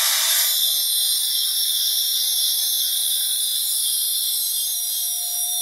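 Small cordless electric screwdriver whirring steadily at high pitch as it backs a small screw out of an RC car's plastic portal axle housing.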